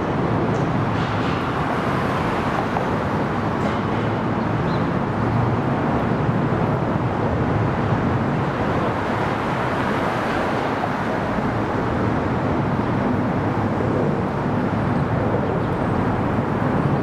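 Steady city street traffic noise: an even wash of passing vehicles, with nothing standing out above it.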